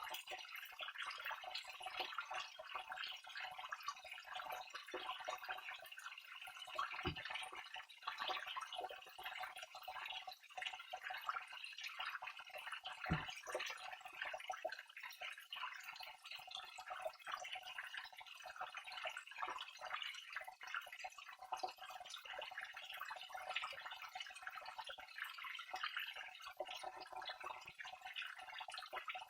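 Small waterfall: water falling and splashing steadily, a continuous trickling rush with many small irregular splashes and drips. Two brief low thumps stand out, about six seconds apart.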